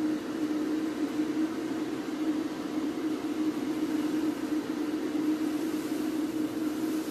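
Electric fan running steadily: a constant low hum over a rush of air.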